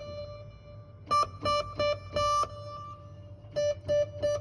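Yamaha MODX synthesizer playing short repeated notes at one pitch with a plucked, guitar-like tone, in two quick groups, the last note of the first group held a little longer. The signal comes through the Apogee Duet 3 clean, with only the keyboard's audio cable connected and no USB noise.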